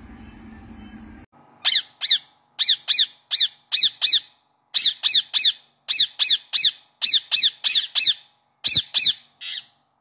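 Ringneck parakeet squawking: a quick run of about twenty sharp, shrill calls, each dropping in pitch, two or three a second. The calls start just over a second in and stop shortly before the end.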